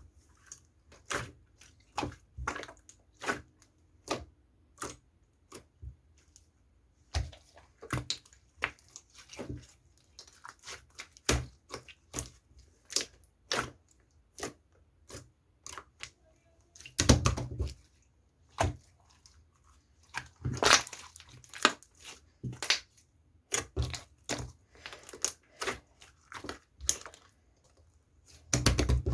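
Close-up crunching and crackling in short, irregular bursts, one or two a second, with a few louder clusters.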